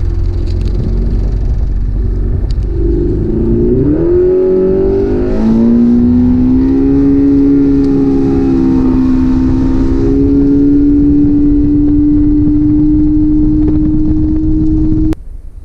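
Boat's outboard motor running under way with wind rush. It throttles up a few seconds in, its pitch rising, then holds a steady, slowly climbing drone before cutting off abruptly near the end.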